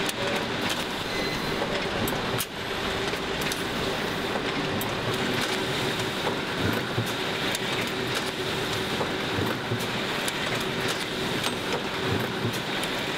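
Paper folding machine running: a steady mechanical clatter of many quick clicks over a constant hum, dipping briefly about two and a half seconds in.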